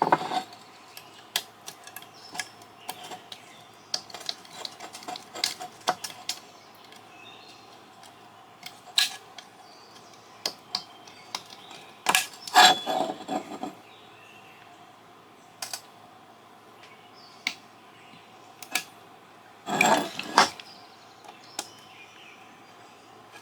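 Hand tools and the metal housing of a satellite LNBF being handled on a bench: scattered light clicks and taps, with a few short, louder scraping sounds around the middle and about three quarters of the way through.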